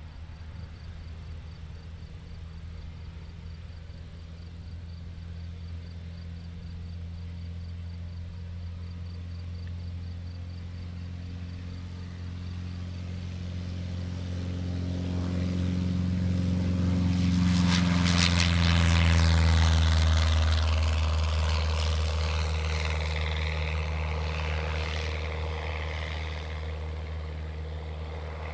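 Cessna 150F's four-cylinder Continental O-200 engine and propeller at full takeoff power as the plane rolls past and lifts off. The steady drone grows louder to a peak about two-thirds of the way through, then drops a little in pitch and fades as it climbs away.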